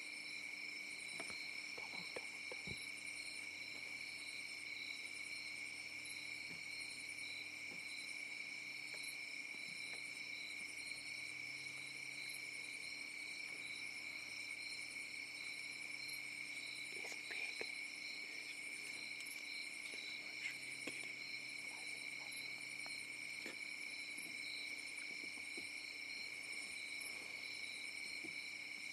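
Dusk chorus of crickets and other insects: a steady shrill trilling at several overlapping pitches, with a faster pulsing trill above them. A few faint clicks now and then.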